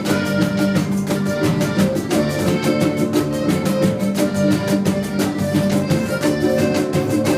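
A live band playing an instrumental passage of a Mexican regional song, with sustained melody lines over a quick, even percussion beat.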